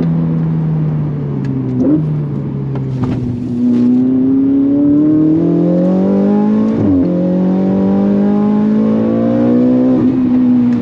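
Ferrari 488 GTB's twin-turbo flat-plane-crank V8, tuned and fitted with an aftermarket exhaust, heard from inside the cabin under hard acceleration. The revs climb and the pitch drops sharply at quick dual-clutch gear changes about two, seven and ten seconds in, with a short easing of the engine note just after the first.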